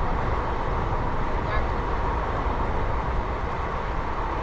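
Steady running noise of a moving passenger train heard at an open coach window: wheels on the rails and rushing air, with a heavy low rumble.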